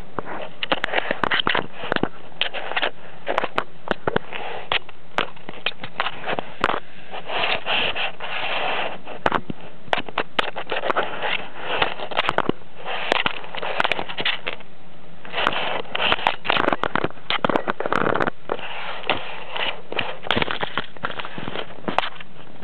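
A kitten's nose and fur brushing and bumping against the camera's microphone, giving irregular crackling, scraping clicks and sniffing over a steady hiss.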